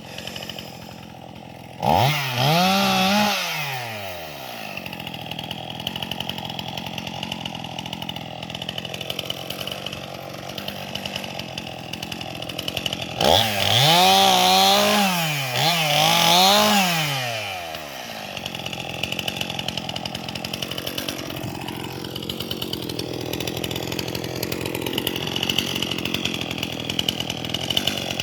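Gas chainsaw idling, revved up sharply once about two seconds in, then revved twice more in quick succession around halfway. It then runs steadily, as the felled tree is cut in half.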